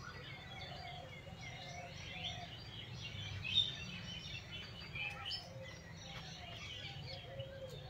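Several birds chirping and twittering, faint, in many short quick calls with a few lower whistled notes, over a steady low background hum.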